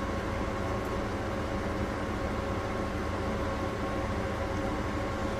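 Steady whir of EG4 solar inverter cooling fans with a bit of hum, mixed with an inverter window air conditioner ramping up; the two are about equal in noise but have a different tone. A faint steady whine sits over the even fan noise.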